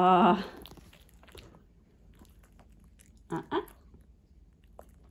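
Pomeranian puppy chewing a small hand-fed treat: faint, irregular mouth clicks and crunches, with two short louder sounds about three and a half seconds in. A spoken word trails off at the very start.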